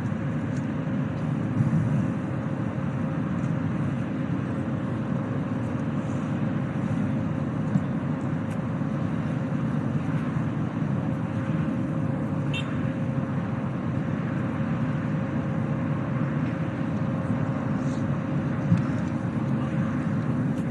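Steady low rumble of a jet engine running at a distance, with a faint steady whine and no rise or fall in pitch.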